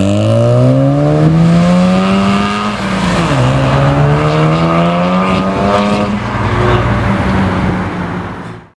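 Mazda RX-7 (FD) rotary engine revving hard as the car accelerates away, with one upshift about three seconds in, then pulling up through the revs again and fading as it drives off.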